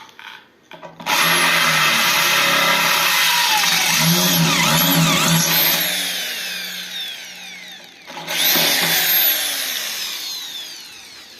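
Electric drill at low speed, drilling out a stainless steel rivet. It runs twice, starting about a second in and again about eight seconds in, and each time winds down with falling pitch as the trigger is eased off.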